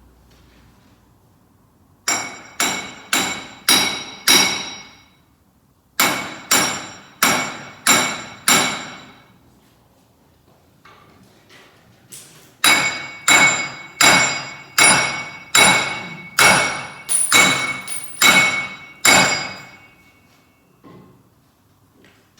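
Hand hammer striking steel in three runs of blows, about two a second. The last run is the longest, at about a dozen blows, and each blow rings metallically.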